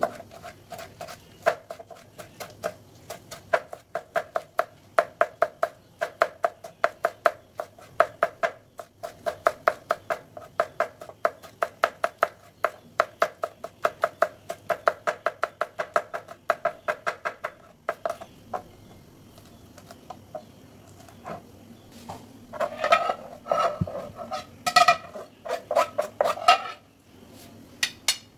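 Kitchen knife chopping green chillies on a plastic cutting board, quick even strokes several times a second that stop after about eighteen seconds. Near the end come a few louder, ringing knocks and scrapes as the knife scrapes the chopped chilli onto a ceramic plate.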